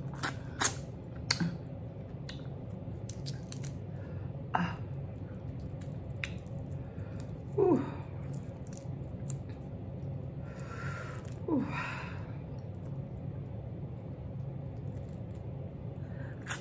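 Close-miked eating of shell-on shrimp by hand: soft chewing with a few sharp clicks of shell near the start and again about four and a half seconds in. There are two short, falling, squeaky lip smacks, over a steady low hum.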